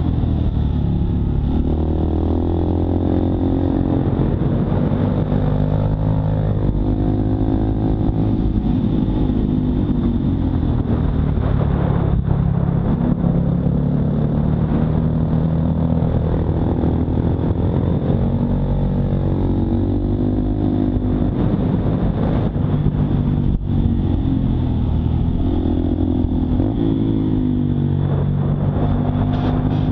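Honda Monkey 125's single-cylinder four-stroke engine running on the move, its pitch rising and falling repeatedly with the throttle.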